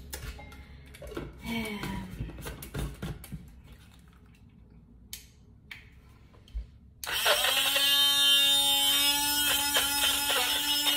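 Battery-powered portable blender bottle switching on about seven seconds in and running with a steady, even motor whine, after a few clicks and knocks of handling. The motor is too weak to blend the apple and fruit inside: even the banana stays unmixed.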